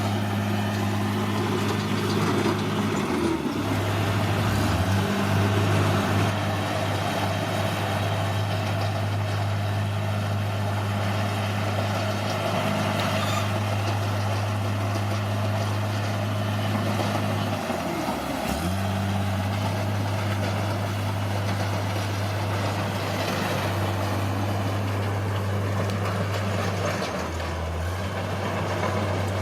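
Bulldozer's heavy diesel engine running steadily under work, with the engine note dropping briefly a few times: a few seconds in, past halfway and near the end.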